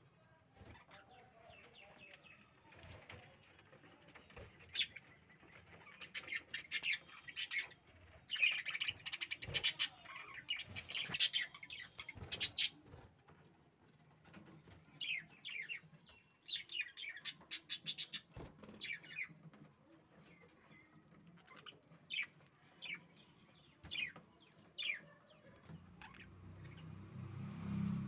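Caged budgerigars chirping and chattering in quick, high bursts. The chatter is busiest from about a fifth of the way in to nearly halfway, then comes in shorter bursts and single chirps later.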